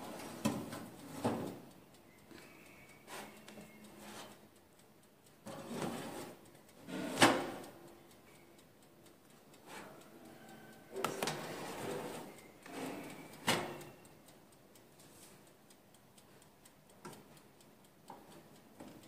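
Metal loaf tins and a baking pan knocking and scraping on the wire rack of an electric oven as they are slid in, in scattered clanks with the sharpest one about seven seconds in.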